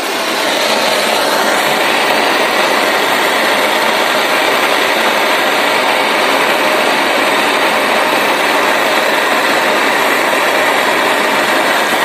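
Gas blowtorch flame running with a steady rushing hiss, played on an Anderson connector terminal to heat it until the solder fed into its cup melts.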